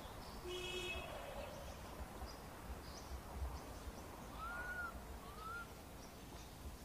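Quiet outdoor ambience with a low rumble, a brief buzzy call under a second in, and two short, thin, arched whistling calls about two-thirds of the way through.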